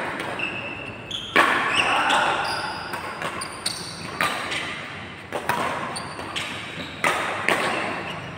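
Badminton rally: sharp racket-on-shuttlecock hits about every one to two seconds, each with a short echo from the hall.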